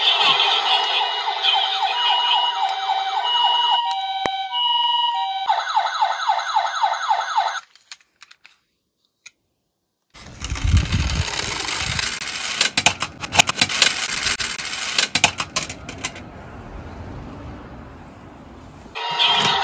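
A toy ambulance's electronic siren alternating between two tones, then switching to a fast repeated yelping sweep before it stops. After a pause of silence, a small die-cast ambulance rolls down a plywood slope with a rattling clatter and several sharp knocks as it tumbles over, and the siren starts again right at the end.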